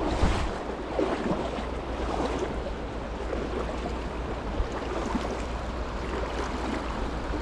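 Steady rush of flowing creek water running high, with a low rumble of wind on the microphone.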